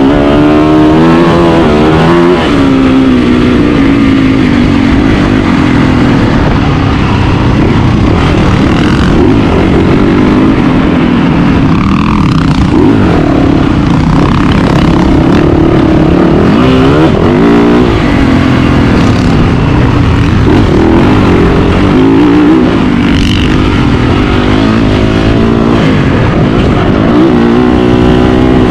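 Motocross dirt bike engine running hard, its pitch climbing and dropping over and over as the throttle is opened and shut and the gears change.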